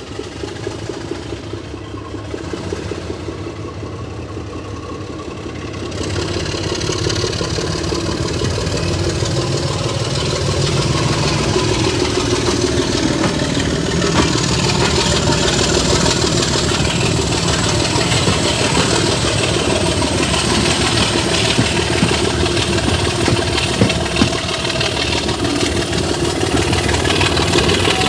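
Diesel locomotive engine running heavily, getting louder about six seconds in and then holding at a steady loud level. From about halfway through, a thin high whine rises slowly in pitch over the engine noise.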